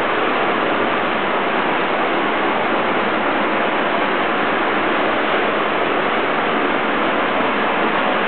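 A steady, loud hiss with no distinct events.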